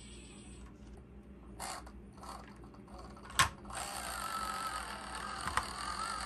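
Small electric motor and gear drive of an Axial SCX24 micro crawler whirring in short spurts, then running steadily as the truck drives off a trailer. A sharp knock about three and a half seconds in, as its wheels drop down from the trailer bed.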